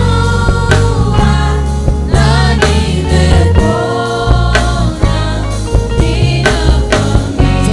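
Gospel praise singing by a church choir over a loud band with heavy bass and a steady beat.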